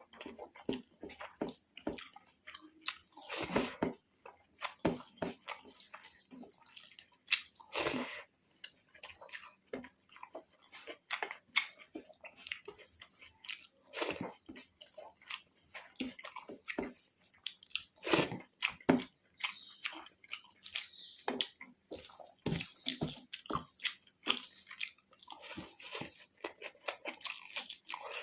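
Close-up eating sounds: wet chewing and lip smacking of a rice-and-curry meal, with irregular sticky clicks and occasional crunchy bites, likely of the fried beguni or shak bhaja.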